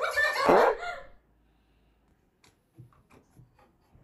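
A voice over background music, ending in one sound that falls steeply in pitch, stops about a second in. Then near silence with a few faint ticks and rubs.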